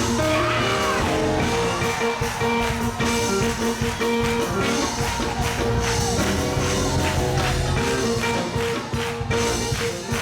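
Live gospel praise music from a church band, with held keyboard chords over a drum kit and guitar.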